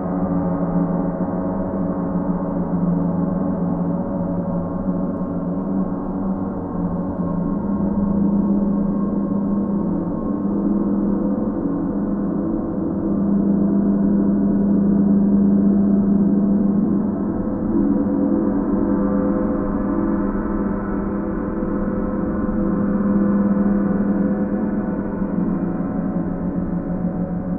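Paiste planetary gongs sounding a sustained ringing wash of many overlapping tones, deepest and strongest in a low hum, swelling and easing in slow waves every several seconds.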